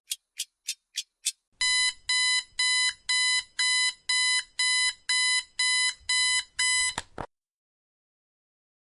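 Clock ticking for a second or so, then a countdown timer's alarm-clock beeping, a rapid run of about a dozen even beeps that cuts off suddenly. The alarm signals that the timer has reached zero.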